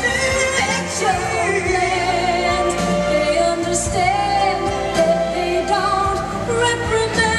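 Show soundtrack music with a singing voice carried over instruments, held notes wavering, at a steady level.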